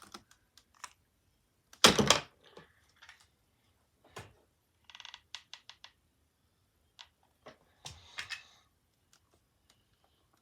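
Scattered clicks, taps and small knocks of hands handling Scrabble tiles and a cardboard box, with a louder knock about two seconds in and a quick run of ticks past the middle.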